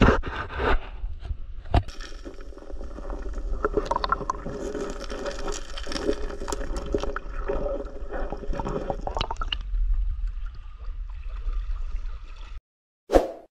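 River water sloshing and gurgling around a camera held at and below the surface, with splashes from wading and from a cast net being hauled out of the water. The water sound cuts off suddenly near the end, followed by one brief sound effect.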